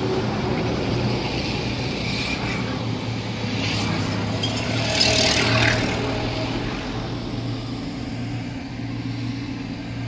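Steady diesel engine hum of a Vögele asphalt paver and the tipper truck feeding it, with a brief rushing hiss about five seconds in.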